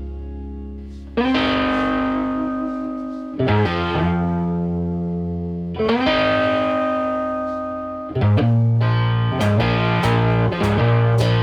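Background music: distorted electric guitar chords, each held and fading, with a busier rhythmic part joining near the end.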